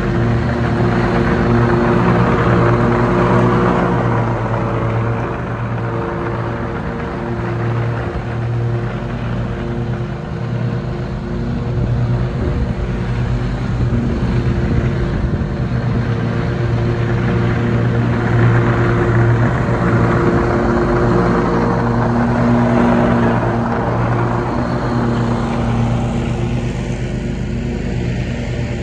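Zero-turn riding mower's engine running steadily while mowing, a constant engine drone that grows louder and softer as the mower moves around the lawn.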